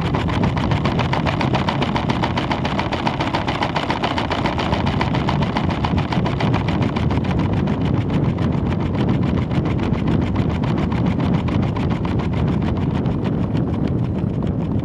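Steady rushing noise with a fast, even rattle from a camera riding on a weather balloon payload in flight.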